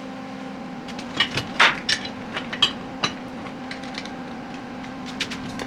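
Steel parts and a bolt clinking and knocking together as they are handled, a cluster of sharp clicks about a second in with one louder ringing clink, then a few lighter ticks.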